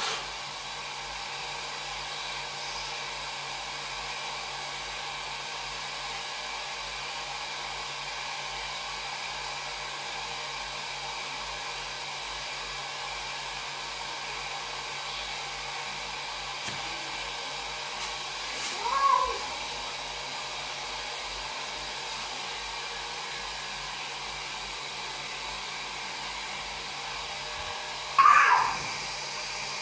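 Domestic cats in a standoff, one giving a short yowl about two-thirds of the way through and a louder cry near the end, over a steady background hiss.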